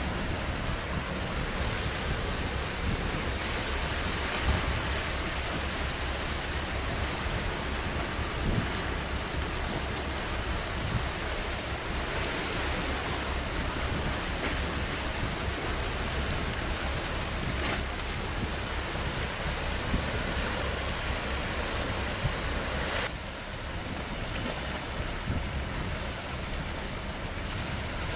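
Wind buffeting the microphone with a low, flickering rumble, over a steady wash of sea waves. The noise drops slightly near the end.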